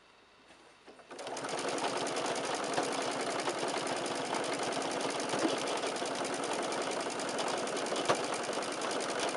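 Domestic electric sewing machine stitching a quarter-inch seam through cotton quilting fabric, starting about a second in and then running at a steady fast pace with an even rapid needle rhythm.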